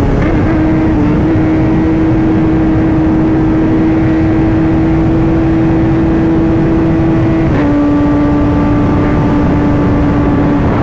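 Kawasaki ZX-10R's inline-four engine running at steady high revs while riding, over heavy wind noise. About three-quarters of the way through, the engine note steps down slightly.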